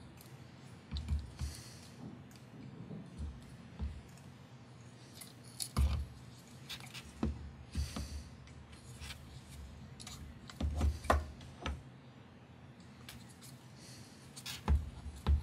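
Scattered light clicks and taps of a small carbon-fibre quadcopter frame and its fitted parts being handled and dry-fitted, with a few louder knocks about a third of the way in, past the middle, and at the end.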